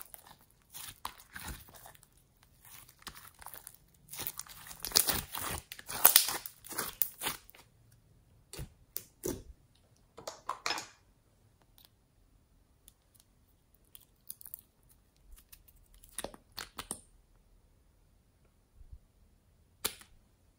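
Glitter slime being stretched and squeezed by hand, giving bursts of crackling, tearing noises, loudest about four to seven seconds in. In the second half only a few scattered soft clicks and taps.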